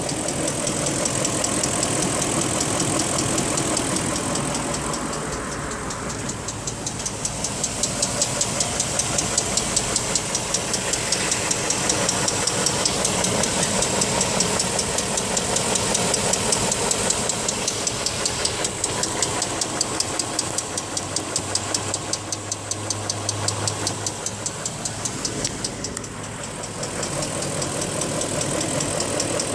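BMW X5 engine running with a rapid, even ticking on top of the engine sound. A new tensioner has already been fitted and the tick is still there, so its cause is unknown.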